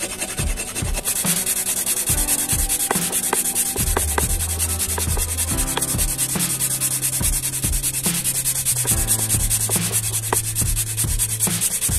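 Hand sanding of a wooden stock: sandpaper wrapped round a dowel is rubbed rapidly back and forth along the wood, giving a steady scratchy hiss. It grows louder about a second in, after a flat file is first drawn over the wood.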